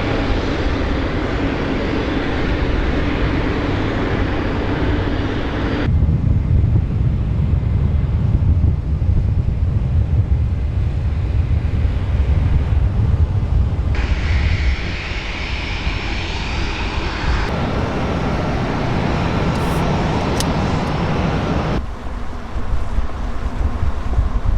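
Loud, steady engine or machinery noise in several short clips cut together, changing character abruptly at each cut. It shifts from a steady hum with a held tone to a heavy low rumble and then to a lighter, higher noise.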